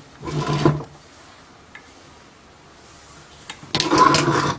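Handling noise from a small Cat pump and electric motor assembly being turned over and moved on the bench: its metal body and brass fittings clatter and knock in two bursts, a short one at the start and a longer, louder one near the end.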